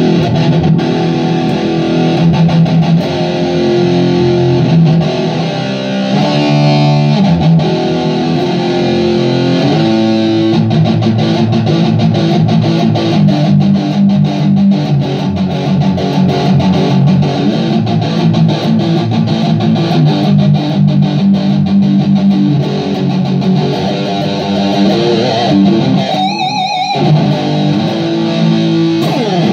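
Stratocaster-style electric guitar played through a Vox 20+ tube-and-digital hybrid amplifier: a continuous stretch of changing notes, with a wavering vibrato note near the end.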